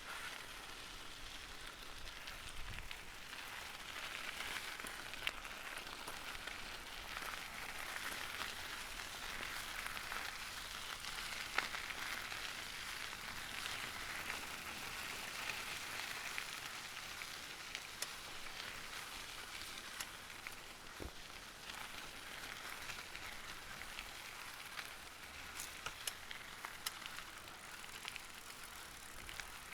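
Bicycle tyres rolling over gravel: a steady crunching hiss with scattered small clicks of stones, louder in the middle and easing off toward the end.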